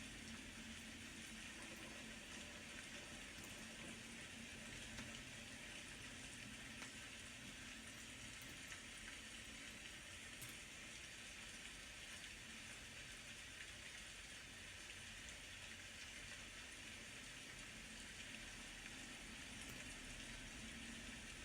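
Faint, steady rain, an even hiss that does not change.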